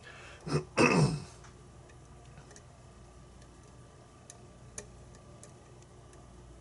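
A short wordless vocal sound from the man about a second in, then sparse, faint metallic ticks of lock picks working the pins of a pin-tumbler challenge lock.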